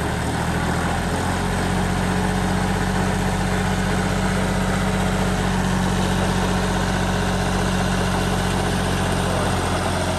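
John Deere 5050E tractor's three-cylinder diesel engine running steadily with a Jagatjit super seeder hitched behind. About a second in, its note grows louder and holds.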